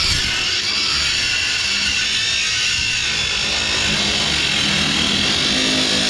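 Angle grinder with a cut-off wheel cutting through a steel weld on a truck's bed side, a steady high-pitched grinding.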